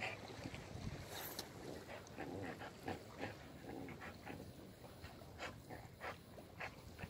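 A dog making short, faint sounds over and over at uneven intervals, about two a second.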